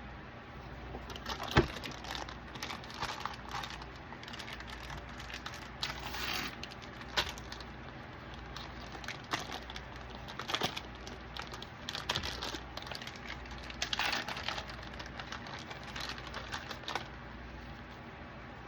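Hands laying cheese over the macaroni and handling its packaging: irregular light clicks, taps and rustles, with one sharper knock about a second and a half in. The handling stops about a second before the end.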